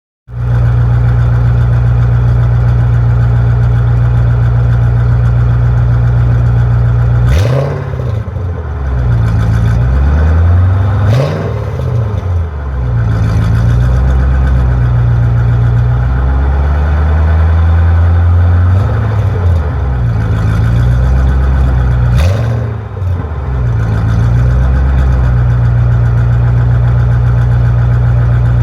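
Ford Mustang GT V8 idling, blipped briefly three times: twice a few seconds apart and once more later. Its exhaust has a leak at the newly fitted Mac off-road Prochamber, which the owner says makes it sound like a truck.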